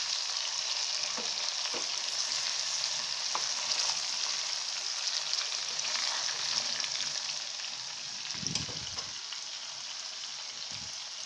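Pieces of murrel fish shallow-frying in hot oil in an aluminium pot: a steady sizzle with crackles, with a few light taps of a metal spatula as the pieces are turned. The sizzle eases a little in the second half.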